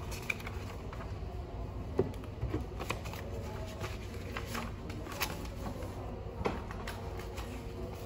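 Sheets of paper rustling as they are handled, shuffled and flipped, with scattered light clicks, over a steady low room hum.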